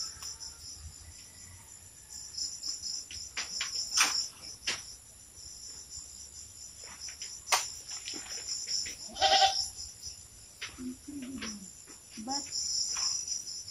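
Insects chirring steadily and high-pitched, with scattered sharp clicks and snaps, the loudest about four, seven and a half and nine seconds in. A short falling low call sounds about eleven seconds in.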